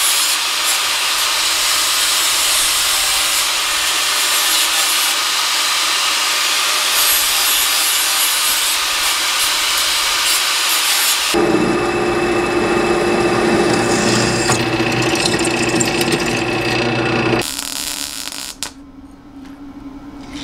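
Angle grinder grinding steel tubing, a loud steady hiss of disc on metal. About eleven seconds in the sound changes to a lower one with a steady hum, and it falls away quieter near the end.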